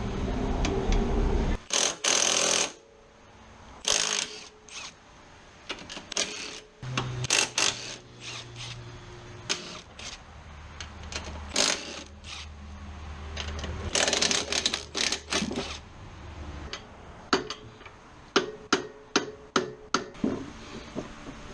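Hand tools working on car fasteners: runs of rapid clicking and metal clinks, with a longer noisy burst about two seconds in and another around fourteen seconds.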